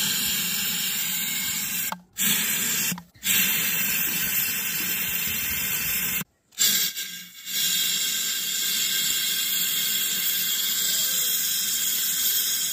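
Pressurised gas refill can hissing steadily as liquid LPG is sprayed from its nozzle into a plastic soda bottle, with gas escaping around the nozzle. The hiss breaks off briefly three times.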